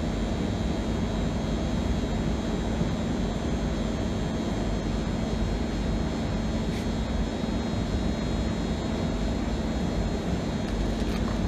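A steady mechanical drone with a constant low hum and a faint high whine, unchanging in level, with a couple of faint clicks in the second half.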